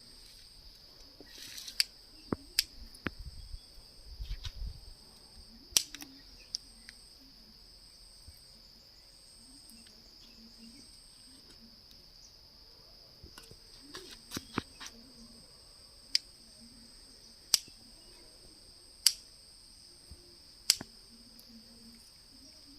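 Crickets trilling steadily in a high continuous drone, with a second, higher insect call pulsing in short bursts about once a second before it turns steady about halfway through. Sharp single clicks cut in now and then, more regularly toward the end.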